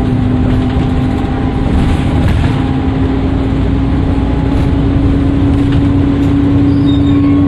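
Dennis Trident II bus engine running under way, with a steady turbocharger whistle that rises gently in pitch.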